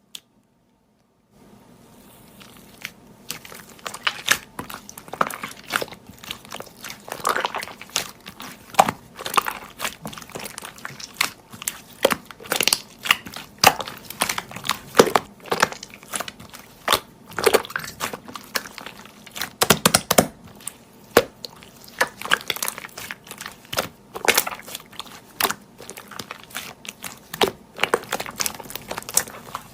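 Slime being squeezed and pressed by hand, making irregular crackling, popping clicks that start about a second and a half in.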